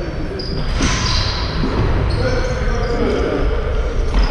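Basketball game play on an indoor court: sneakers squeak on the floor several times and the ball bounces, with a sharp knock about a second in and another near the end.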